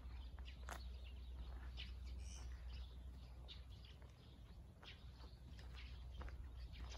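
Faint outdoor ambience: a small bird chirps briefly about two seconds in, over soft scattered footsteps and a low steady rumble.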